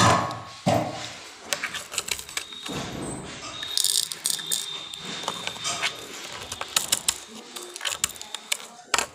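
Plastic containers and a lid being handled, giving a busy run of small clicks, knocks and rattles as leftover sugar is moved into a storage container.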